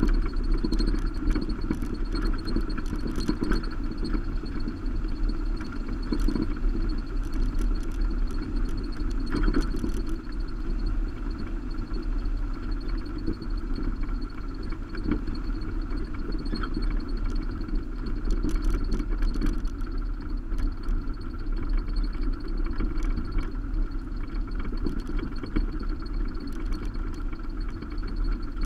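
Subaru Baja driving along a gravel road, heard from a camera on its roof rack: a steady rumble of engine, tyres on gravel and wind, with scattered small clicks and knocks.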